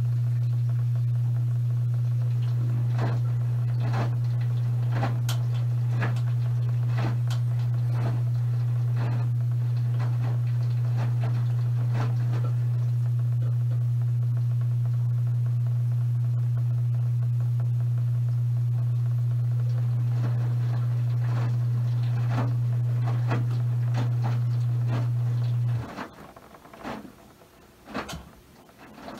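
Maytag top-load washing machine giving a steady low electrical hum, with light clicks and knocks about once a second. The hum cuts off abruptly near the end, leaving only the clicks.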